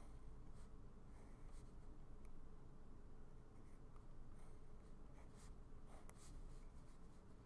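Faint scratching of a Muji pen drawing short line strokes on sketchbook paper, a series of brief strokes with small pauses between them.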